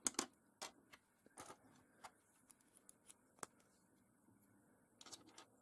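Faint, scattered clicks of plastic K'NEX rods and connectors being handled and snapped together, a few irregular sharp clicks.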